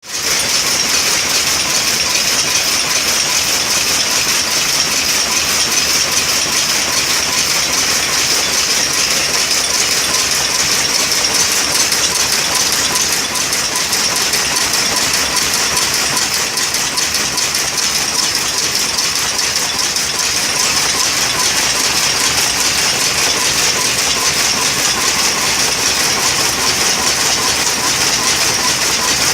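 Power loom running with a steady, fast metallic clatter.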